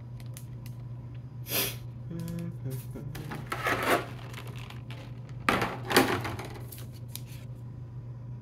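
Trading cards being slid into soft plastic penny sleeves: a few short rustles and scrapes, about one and a half seconds in, around four seconds in and around six seconds in, over a steady low hum.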